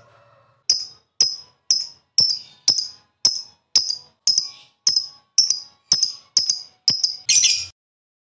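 Masked lovebird calling: a string of sharp, high chirps at about two a second, ending in a quick rapid burst before it stops.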